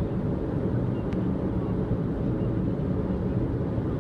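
Car driving on an expressway in heavy rain: a steady low rumble of road and tyre noise on the wet road. A faint click about a second in.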